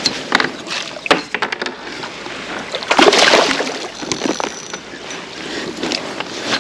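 Hooked trout thrashing and splashing at the surface beside a kayak, with a loud splash about three seconds in and scattered clicks and knocks of fishing gear.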